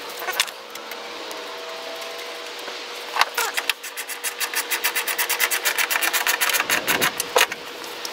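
A ratchet wrench clicking rapidly, about a dozen clicks a second, for roughly four seconds from about three seconds in, as a small nut is run on or off. Before that, only a few single light knocks of tool on metal.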